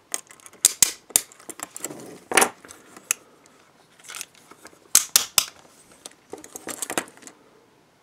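Antique French aluminium handcuffs being handled: scattered sharp metallic clicks and clinks from the cuffs and their chain links, with no clicks in the last second.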